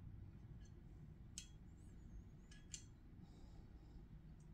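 Near silence with a few faint, sharp clicks, one about a second and a half in and a quick pair a little later: small landing-gear parts being handled and pressed into place on a die-cast 1:200 scale model airliner.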